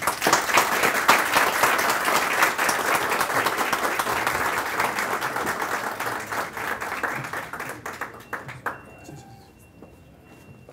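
Audience applause that starts suddenly and dies away after about eight seconds.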